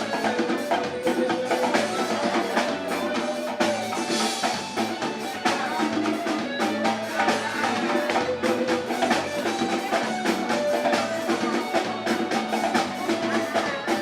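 Axé music played by a band, with a busy beat of bass drum, snare and percussion under the instruments.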